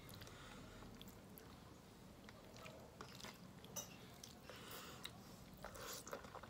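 Faint chewing and wet mouth smacks of a person eating soft food by hand, with small scattered clicks, a few a little louder about four to six seconds in.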